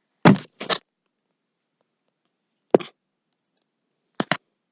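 Five short clicks and knocks of handling: a pair about half a second apart near the start, a single one in the middle, and a quick pair near the end.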